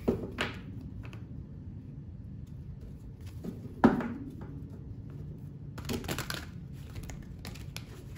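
A deck of tarot cards being shuffled and handled by hand, with crisp card rustles and slaps. The sharpest slap comes about four seconds in, and a quick run of card rustles follows a couple of seconds later.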